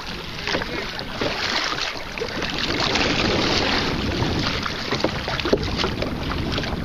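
Sea water splashing and lapping against a kayak's hull on a choppy sea, with irregular slaps and a steady rumble of wind on the microphone.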